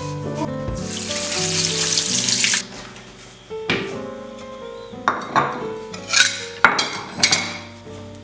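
Hot water draining from a pot through a plastic colander into the sink, a rushing noise that cuts off about two and a half seconds in. Then several sharp knocks and clinks as kitchenware, among it a glass serving dish, is set down on a wooden cutting board. Soft piano music plays throughout.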